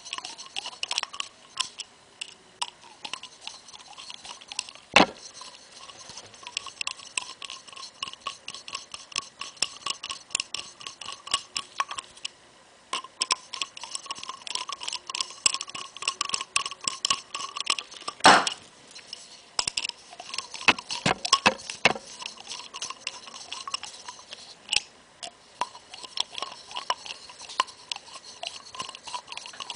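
Small ratchet wrench clicking in rapid runs as the steering damper's small hex bolts are run in and tightened, with two louder metal knocks, about five seconds in and again after eighteen seconds.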